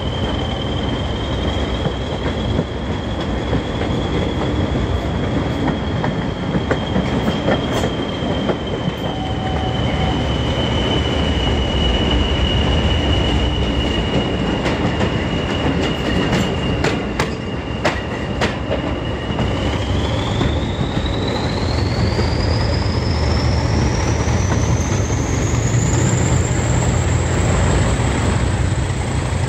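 An English Electric Class 40 diesel locomotive running under power, its turbocharger whistle holding one high steady note over the low engine rumble. About two-thirds of the way through, the whistle rises steeply in pitch as the turbochargers speed up. A few sharp clicks come a little after halfway.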